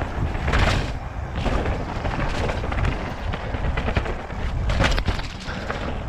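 Mountain bike descending a wet, rocky trail at speed: wind buffets the microphone over the tyres hissing and splashing in mud, with the bike clattering over rocks. The loudest knocks come about half a second in and again near five seconds.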